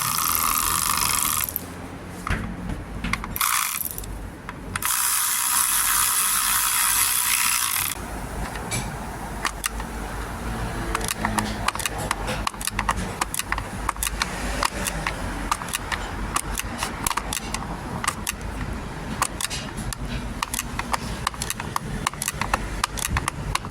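Ratchet work on a car's parking brake: a powered ratchet spins in two bursts of a few seconds, then a long stretch of irregular metallic clicking and ticking.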